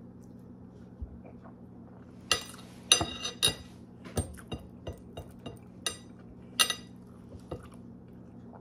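A white ceramic dinner plate clinking, with short bright rings, about a dozen times as fingers and fingernails gather rice and food from it by hand, beginning about two seconds in. A low steady hum runs underneath.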